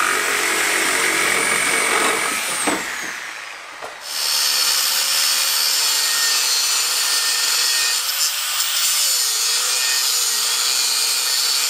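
A corded power tool runs against a car's steel underbody and winds down about two and a half seconds in. After a short lull, an angle grinder grinds into steel with a steady high whine, its pitch shifting briefly as the load changes.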